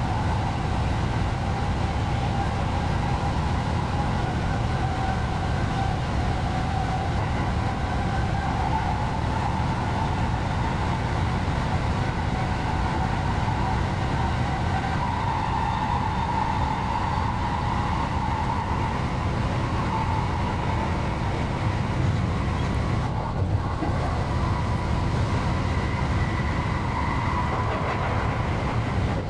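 JR West 223 series electric train running: a steady low rumble with a motor whine that drifts slowly up and down in pitch.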